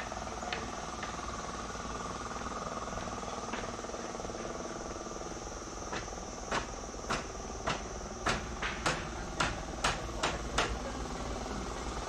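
Footsteps knocking on wooden boards, about two sharp steps a second, starting about halfway through. Under them runs a steady high insect drone and a low hum.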